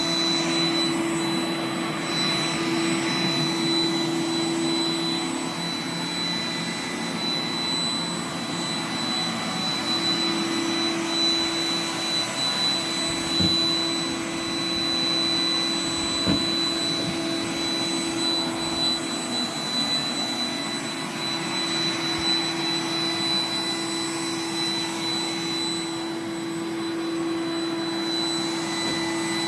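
iRobot Roomba 980 robot vacuum running steadily, a constant motor hum with a high whine, picking up confetti. A couple of light knocks sound about halfway through.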